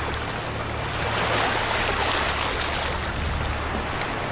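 Seawater from the surf rushing and swirling through a narrow gap between two concrete seawall blocks crusted with barnacles, with a steady low rumble of wind on the microphone.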